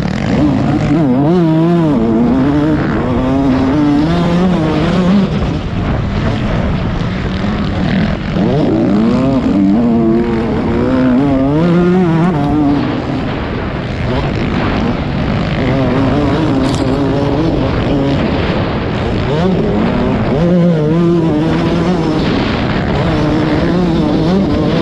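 Motocross motorcycle engine heard from an on-board camera, revving hard with its pitch climbing and dropping again and again as the throttle opens and closes around the track, over steady wind and track noise.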